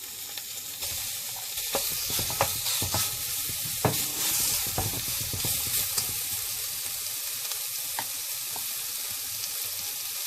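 Bánh xèo crepe frying in a hot oiled pan: a steady, loud sizzle with scattered sharp crackles and pops.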